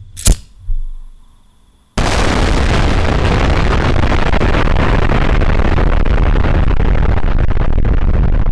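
A disposable lighter's flint wheel is flicked with a sharp click; about two seconds in a huge explosion sets in suddenly, and its deep noise carries on steady and loud.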